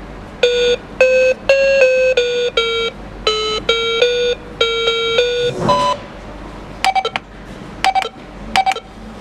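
Toy cash register's small electronic speaker playing a short beeping tune of about a dozen notes, then a single beep and three quick bursts of short key-press beeps.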